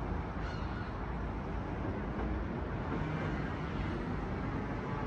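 Steady outdoor background noise: an even low rumble with hiss.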